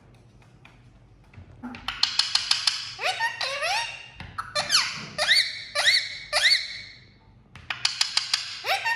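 A green parrot giving a rapid series of shrill squawks, each sweeping quickly up and down in pitch, about two to three a second. The calls start about two seconds in and break off briefly about seven seconds in before resuming.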